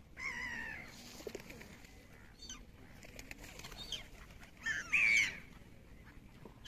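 Gulls calling: a harsh, wavering cry near the start and a louder one about five seconds in, with shorter cries between.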